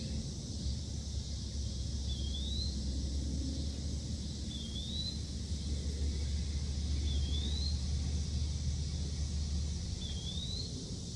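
Outdoor ambience: a bird repeats a short rising call about every two and a half seconds, five times, over a steady high hiss. A low steady rumble underneath stops about a second before the end.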